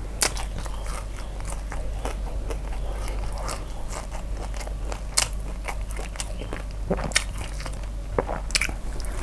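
Close-miked chewing of a mouthful of food: wet mouth smacks and small crunches, irregular, with a few sharper clicks.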